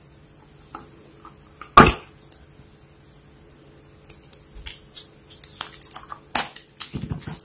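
Slime being squeezed and poked by hand: one sharp pop about two seconds in, then a quick run of small crackling pops and clicks through the second half.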